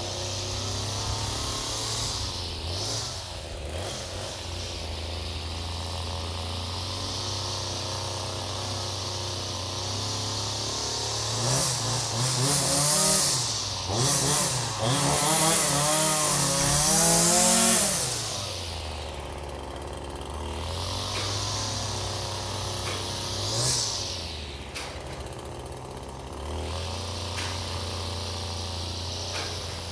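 Small two-stroke power-tool engine idling steadily, then revved up and back down several times in quick succession about halfway through, with one more short rev a little later before it settles back to idle.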